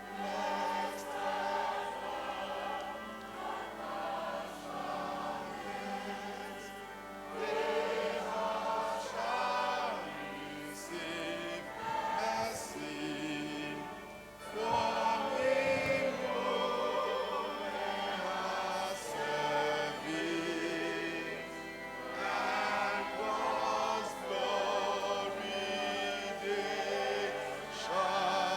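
A choir singing, many voices together.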